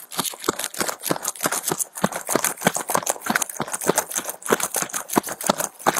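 Body camera jostling as the deputy wearing it runs on foot: a quick, uneven stream of footfalls, clatter and rustling as he pushes through grass and brush.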